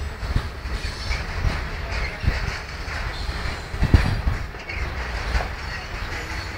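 Railway wagons rolling over track: a steady low rumble with irregular knocks and clanks of wheels over rail joints, the loudest knock about four seconds in.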